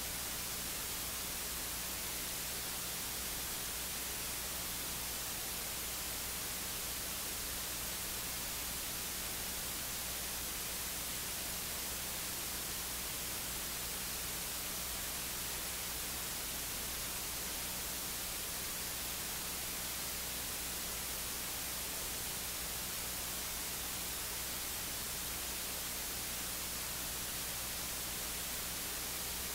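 Steady electronic hiss with a faint low hum, the noise of a recording chain that carries no other sound.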